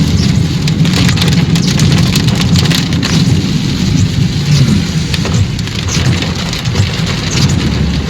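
Rain hitting a car's roof and windshield, many fine drop ticks over an even hiss, with a steady low rumble from the car driving through it.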